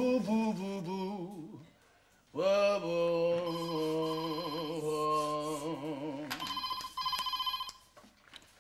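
Singing with vibrato fades out, then a long held musical note with vibrato. Near the end a telephone rings with a trilling electronic ring for about a second and a half.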